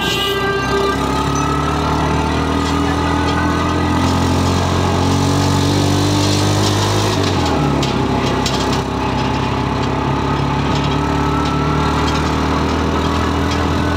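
Engine of a road vehicle being ridden, running steadily with its pitch climbing slowly as it speeds up, dropping suddenly about seven seconds in, then climbing again.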